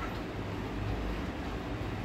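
Steady low rumbling background noise, with no distinct clicks or knocks standing out.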